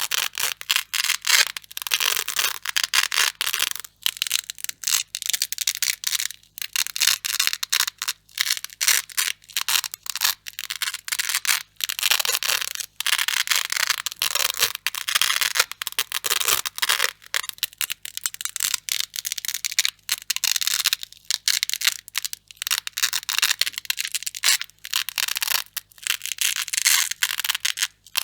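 Grey hook-and-loop (Velcro) strips being pulled apart over and over, a crunchy ripping crackle in short repeated tears with brief pauses between them.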